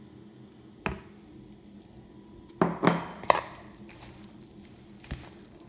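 Sharp knocks from kneading dough by hand in a bowl: one about a second in, three in quick succession around the middle, and a lighter one near the end.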